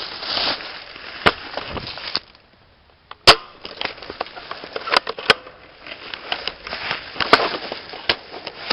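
Single sharp cracks of airsoft guns firing, about six shots scattered a second or two apart, the loudest about three seconds in, over rustling.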